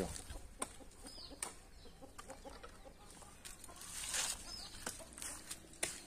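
Faint bird calls: a few short, high chirps and soft repeated clucking, over light rustling and footsteps through grass and brush.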